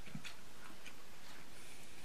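A man eating: a few faint, irregular clicks of a metal spoon on a plastic frozen-dinner tray and of chewing, over a steady room hiss.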